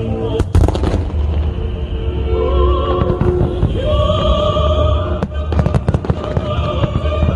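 Fireworks bursting with booms and crackles: a cluster of sharp bangs about half a second in and another run around five to six seconds in, over a continuous low rumble. Festival show music with long held sung notes plays underneath.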